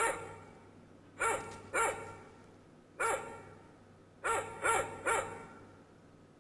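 A dog barking: about seven sharp barks in short clusters, one or two at a time and then three in quick succession just past the middle.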